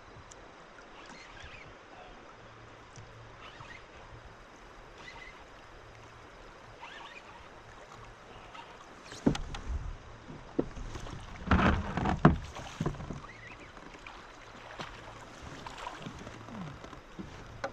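Quiet water sound around a kayak while a fish is being played on the rod. About nine seconds in comes a cluster of loud knocks and thumps, strongest about twelve seconds in.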